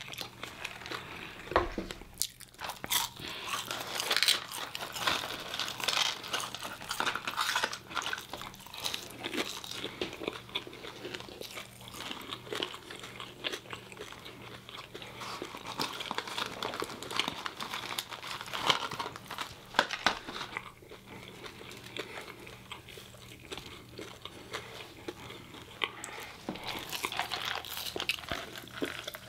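Close-miked chewing and crunching of crispy fried chicken and fries, with irregular bites and the crinkle of a paper fry carton being handled.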